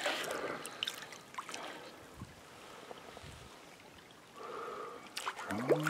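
Stream water running in a steady hiss, with a few faint clicks in the first second and a brief louder rush about four and a half seconds in.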